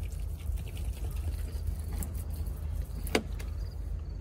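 Charcoal briquettes soaked in lighter fluid burning with an open flame, a steady low rumble, with a sharp click about three seconds in.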